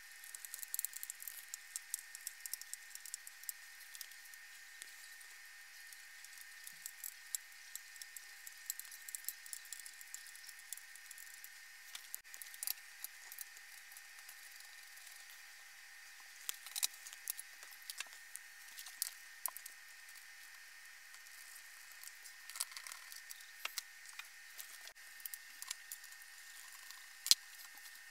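Faint, scattered clicks and light metallic rattles of a hand screwdriver and screw hardware being worked into a crib panel, with a sharper knock near the end.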